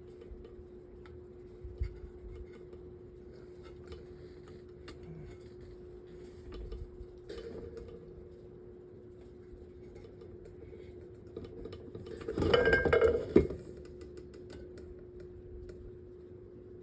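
Metal table fan parts being handled and knocked together during reassembly: scattered light clicks and clinks, then a loud metallic clatter about twelve seconds in that ends in a sharp knock. A steady hum runs underneath.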